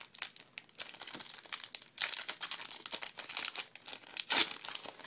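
A trading-card pack wrapper crinkling and tearing as it is opened by hand. The crackles come in irregular bursts, loudest about two seconds in and again near the end.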